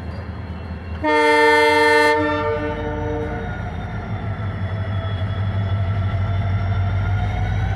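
EMD diesel locomotive humming steadily. About a second in, its horn sounds loudly for about a second, with the lowest notes lingering a little longer. After that, a whine from the engine dips slowly and then rises near the end.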